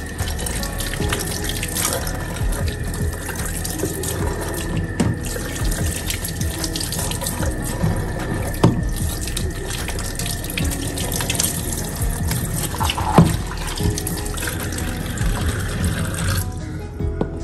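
Kitchen tap running in a metal sink as lemons are rubbed and rinsed under the stream by hand; the water shuts off near the end. Two sharp knocks, the loudest sounds, come from handling the lemons and their plastic container.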